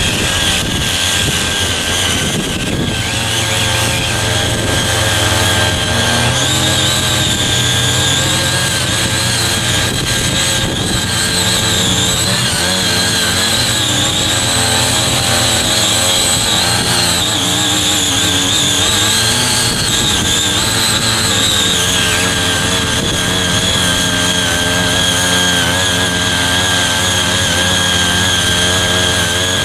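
Small petrol engine of a foldable mini power tiller running steadily, its pitch wavering slightly up and down.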